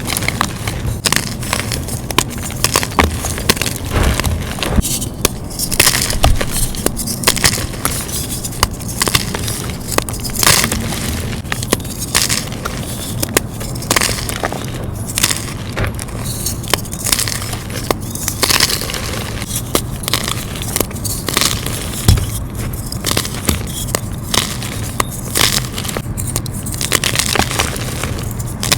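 Dyed gym chalk being crushed, a continuous crisp crunching and crumbling made of many small sharp cracks.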